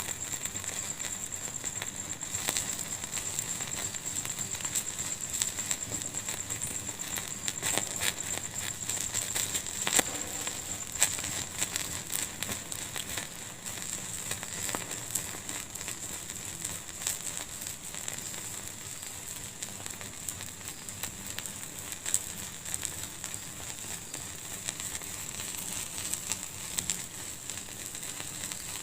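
Wood fire burning in a fireplace, crackling steadily with many small pops and snaps, a couple of louder pops about ten and eleven seconds in.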